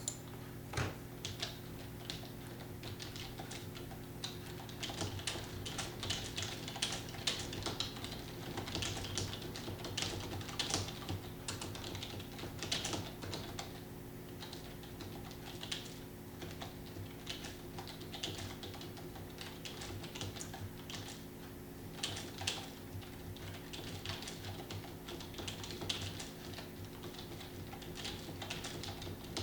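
Steady, fast typing on a computer keyboard: a dense, unbroken run of key clicks, over a steady low hum.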